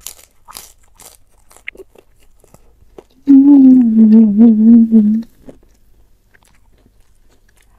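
Close-up crunching as a fried cracker is bitten and chewed, about three sharp crunches in the first second. Then a loud, wavering hummed "mmm" of enjoyment with the mouth closed, lasting about two seconds, followed by soft chewing.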